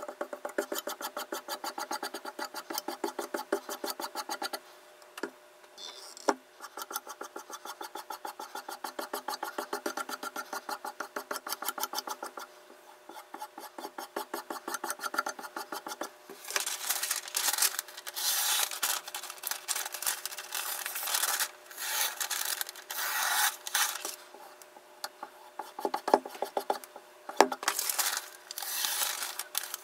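A sharpening stone rubbed by hand in fast, even strokes, making a rasping scrape. From about halfway through, the scraping turns louder and coarser, with short pauses between runs.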